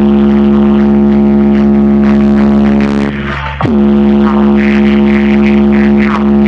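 Car sound system playing electronic music at high volume: a long, buzzy sustained synth note that swoops down at its start, breaks off and restarts with another swoop about halfway through, with higher chopped sounds over it near the end.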